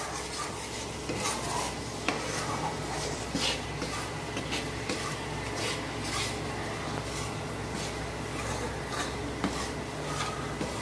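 Spatula stirring and scraping roasted gram flour in ghee around a metal kadhai, with repeated irregular scrapes and clinks against the pan. The flour is kept moving after the flame is off so it does not burn on the hot pan bottom.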